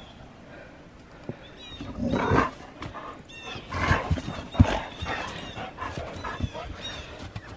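Two dogs playing rough in the snow: short bursts of dog vocal sounds, mostly around two and four seconds in, with scuffling and a sharp knock just after the second burst.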